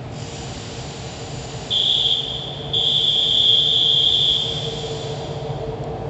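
A shrill, steady high-pitched warning signal sounds twice, a short blast then a longer one that fades away, as a train approaches the platform. A steady low hum runs underneath.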